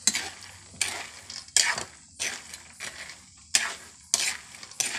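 A metal spoon stirring and scraping a panful of peanuts as they cook, with a rattling scrape roughly every three-quarters of a second.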